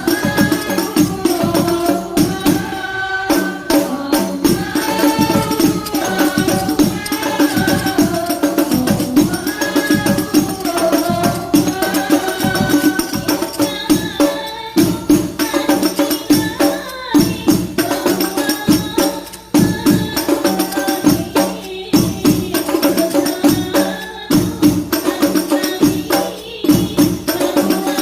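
Habsyi ensemble performing: voices singing a devotional melody over dense, steady hand-drumming on rebana frame drums.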